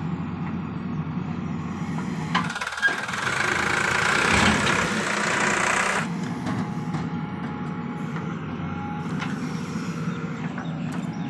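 Diesel engine of a JCB 3DX backhoe loader running steadily while it digs and loads soil, with tractor engines idling alongside. A louder rushing noise rises from about two and a half seconds in and cuts off about six seconds in, as the boom swings the full bucket over the trolley and dumps it.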